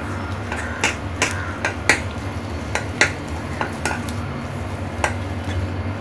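Rice-flour dough being mixed and kneaded by hand in a stainless steel bowl, with irregular sharp clinks and knocks against the steel bowl, about a dozen, spaced unevenly.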